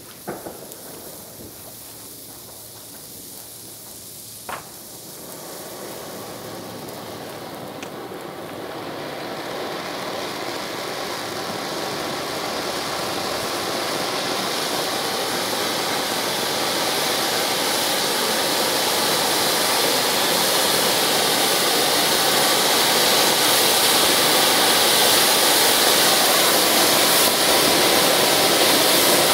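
Zink Supervulkan No. 1 ground fountain firework burning: a steady hissing rush of sparks that grows gradually louder throughout. A few sharp pops come near the start, and one sharp crack about four and a half seconds in.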